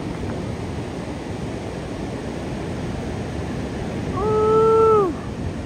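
Heavy ocean surf breaking and washing up the beach, a steady rush. About four seconds in, a single held call of about a second rises over it, steady in pitch and dropping away at the end, and louder than the surf.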